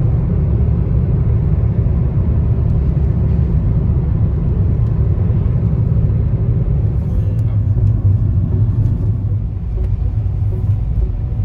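Steady, loud low rumble with no clear tones or rhythm.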